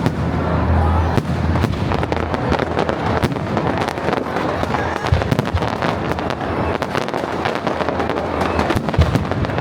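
Fireworks going off in quick succession: dense crackling and popping with scattered sharper bangs, two louder ones about five seconds in and near the end.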